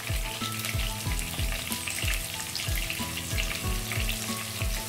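Oil sizzling as chopped tomato and green chillies fry in a wok, under background music with a steady thumping beat and a simple melody.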